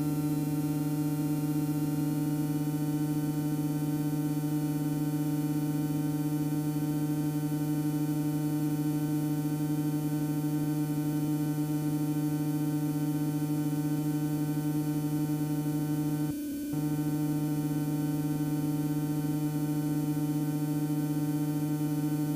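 Extra EA-200's piston engine and propeller running at a steady speed, heard through the headset intercom as an even, unchanging hum, with a brief dropout about sixteen seconds in.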